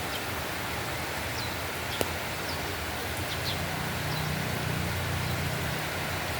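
Heavy rain falling steadily, with short high chirps repeating now and then and one sharp tick about two seconds in. A low rumble swells under the rain in the middle.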